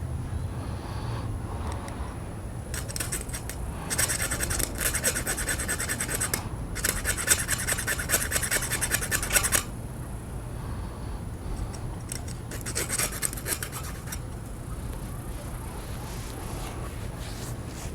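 Small file rasping back and forth on the thin metal of a fishing rod's tip-top guide, cutting through it to remove the chipped guide. The strokes come in several bursts with pauses between, the longest and loudest in the middle.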